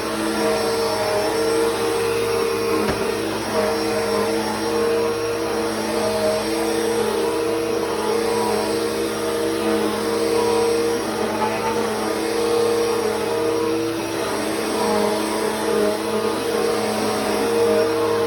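Bissell CleanView 3536 bagless upright vacuum cleaner running while vacuuming: a steady motor whine over airflow noise, its pitch wavering slightly now and then.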